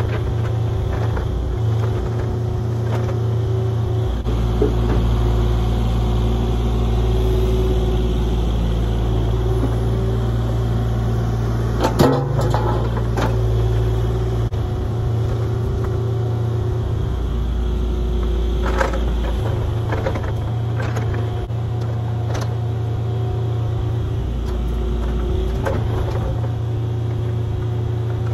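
Excavator engine running steadily while digging with an 18-inch bucket, its low drone shifting in level as the machine works. There is a loud metallic clank about twelve seconds in, another near nineteen seconds, and lighter knocks from the bucket.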